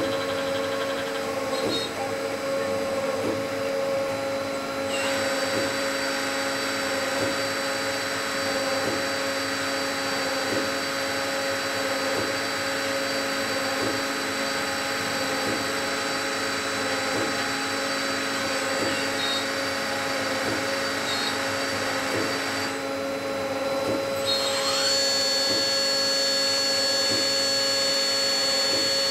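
INDEX MS40-8 CNC multi-spindle automatic lathe running, with a steady whine from its motor spindles and a faint regular ticking. About five seconds in, a hiss of cutting noise rises over the whine and drops away near the end. A rising whine then settles into a high steady tone.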